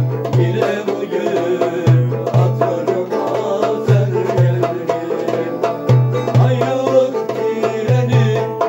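Turkish folk music (türkü) on a long-necked bağlama, over a deep double beat that repeats about every two seconds.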